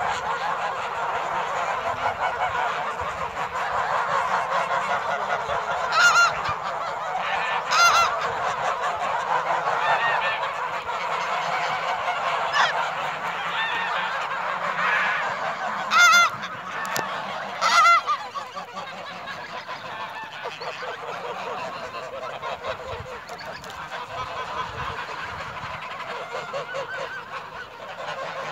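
A large flock of white domestic geese honking in a dense, overlapping chorus. Four louder single honks stand out over it in the first twenty seconds, and the chorus grows a little quieter after that.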